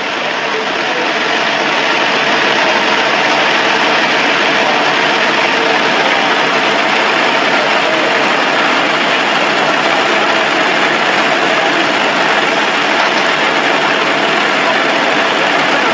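Steady engine or machinery noise, rising over the first couple of seconds and then holding level.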